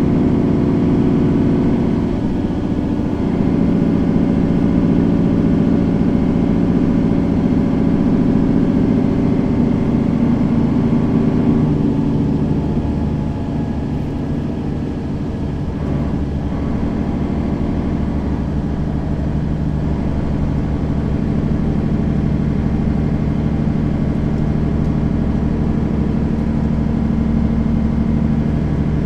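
Mercedes-Benz Citaro facelift city bus engine running under way, a steady drone that eases off and changes note about halfway through, then holds steady again.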